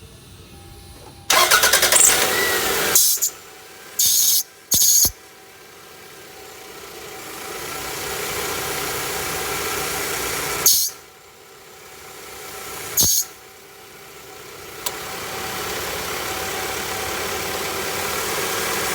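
A 1999 Toyota Camry's engine being started and run, with a loud noise for a couple of seconds and then a noise that swells slowly and cuts off with a sharp burst, over and over. It is the noise the car makes when the steering wheel is turned or the A/C is on, which the owner blames on a damaged belt that he calls the timing belt.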